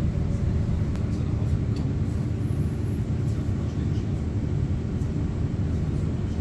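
Electric passenger train running at speed, heard from inside the carriage as a steady low rumble.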